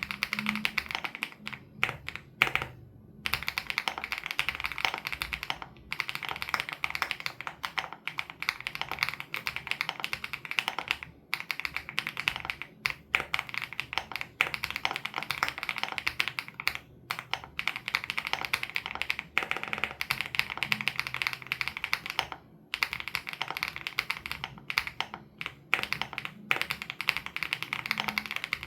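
Continuous fast typing on a WOB Crush 80 Reboot custom mechanical keyboard with Hyacinth switches: rapid runs of keystrokes broken by a few brief pauses.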